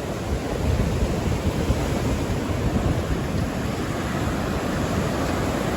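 Ocean surf washing on the beach, with wind buffeting the microphone in a low, gusty rumble.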